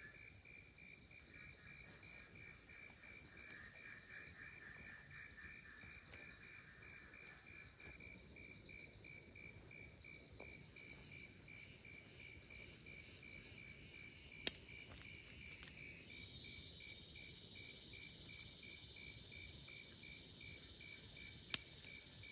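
Insects chirping steadily, one with a fast pulsing trill that runs on throughout, with other insect calls fading in and out. A few sharp clicks come about two-thirds of the way through and once more near the end.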